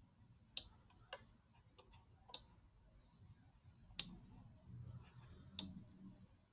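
Five sharp, single clicks of a computer pointing device, spaced irregularly, as an image editor is operated.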